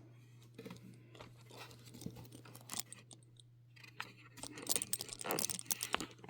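Handling noise: rustling, crinkling and small clicks and taps of things being moved about by hand, busier and louder in the last second or two, over a steady low hum.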